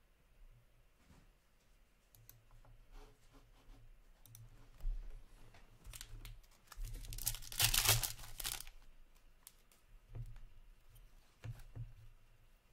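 A foil hockey card pack being torn open by hand, a crinkling rip from about six seconds in to near nine seconds, loudest in the middle. Light clicks and rustles of cards and packs being handled come before and after it.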